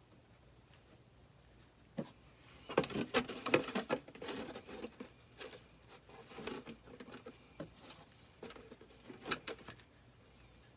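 Irregular clicks, taps and scrapes of hand work with tools under a truck, starting with a sharp click about two seconds in, densest just after, then scattered until near the end.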